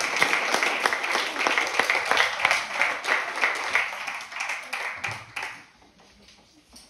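Audience applauding, the clapping thinning out and stopping about five and a half seconds in.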